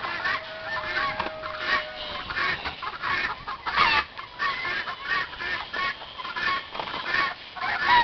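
Chickens clucking, a busy run of short repeated calls. One long steady note starts near the beginning and lasts nearly two seconds.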